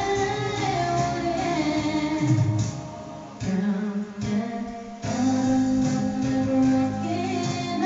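A woman singing karaoke into a handheld microphone over a backing track, holding long notes, with a short break between phrases about halfway through.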